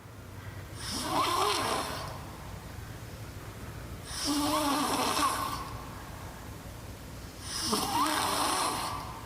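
A young child snoring in her sleep: three loud, rough breaths about three and a half seconds apart. Every breath makes a sound, which an orthodontist takes as a sign of an airway problem, since children are not supposed to snore.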